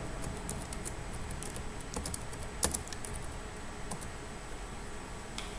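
Light typing on a computer keyboard: scattered, irregular key clicks, the loudest about two and a half seconds in, over a faint low hum.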